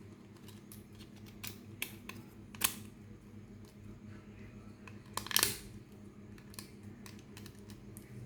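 Plastic toy pieces being handled: a few sharp clicks in the first three seconds and a longer rustling scrape about five seconds in, over a low steady hum.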